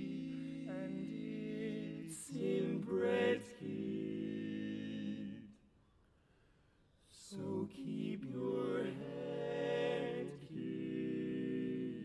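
Male barbershop quartet singing a cappella in four-part close harmony: sustained chords with a louder swell, a brief silent rest about halfway through, then the voices come back in and settle on another held chord.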